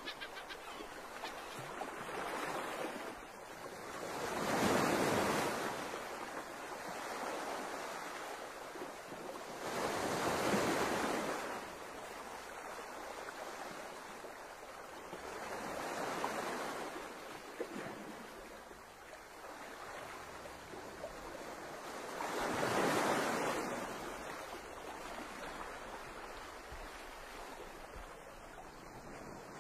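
Small sea waves washing in, a steady rush that swells into four louder surges about six seconds apart.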